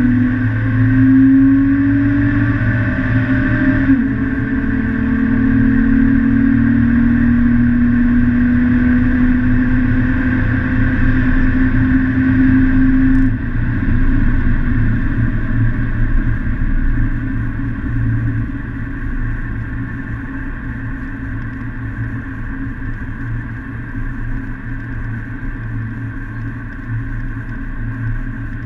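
Car engine heard from inside the cabin under hard acceleration. Its pitch climbs, drops at a gear change about four seconds in, then climbs steadily again. About halfway through the throttle comes off, and the engine settles to a cruise under tyre and road noise.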